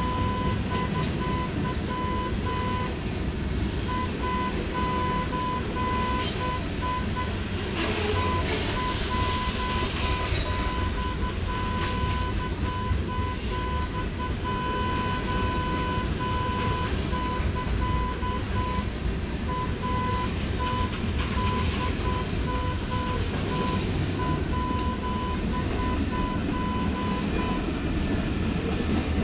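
A single-pitched warning tone sounds on and off in long and short spells over a steady low rumble, and stops a little before the end.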